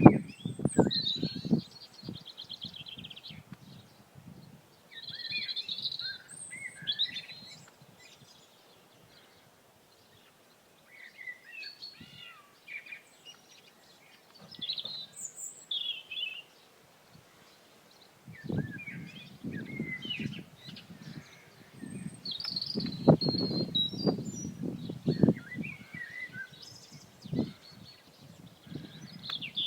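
Small birds chirping and singing in short phrases and trills, with wind buffeting the microphone in gusts at the start and through much of the second half.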